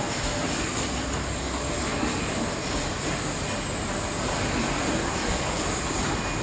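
Bottled-water packing line running: steady mechanical noise from the shrink-wrap tunnel and its wire-mesh chain conveyor carrying film-wrapped bottle packs, with a steady high hiss over it.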